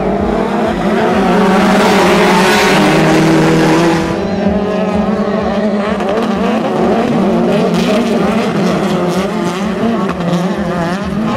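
Engines of a pack of short-course off-road race buggies and trucks revving as they race around a dirt track, several engines overlapping and rising and falling in pitch. The engines are loudest from about one to four seconds in, then run on a little quieter.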